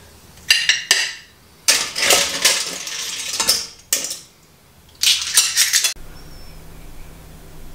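Metal tongs, clam shells, a pan and a plate clinking and clattering as spaghetti with clams is served, in several short bursts. The clatter cuts off abruptly near the end and gives way to a faint steady background noise.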